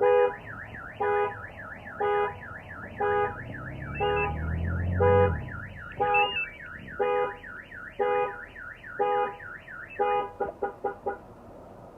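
Aftermarket car alarm siren going off, a fast rising-and-falling warble alternating with horn-like blasts about once a second, ending in a quick burst of short chirps about a second before it stops. It is set off by an attempt to start the vehicle while the alarm's immobiliser is armed.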